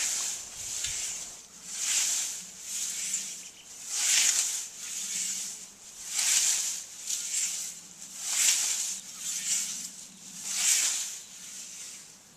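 Hand scythes mowing meadow grass: a swish of the blade through the grass about every two seconds, with softer swishes in between.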